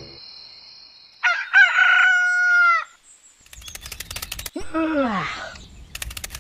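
A rooster crowing once, a single loud call of about a second and a half. After it come a run of rapid clicks and a short falling pitched glide.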